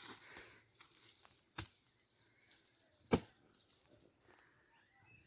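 Steady high-pitched insect trilling, typical of crickets, with two sharp knocks about a second and a half apart, the second louder.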